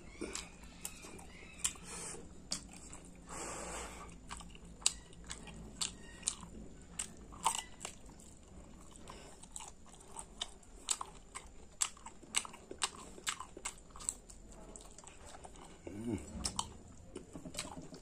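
Close-up eating sounds of a person chewing a mouthful of pork curry and rice, with many irregular wet mouth clicks. There is a short rush of breathy noise about three seconds in.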